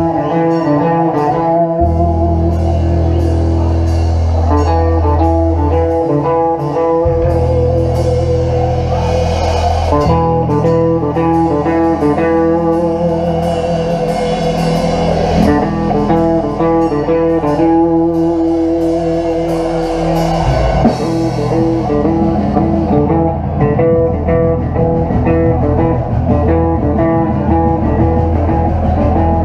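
Live band playing rock music: an electric guitar riffing over a bass line and a drum kit.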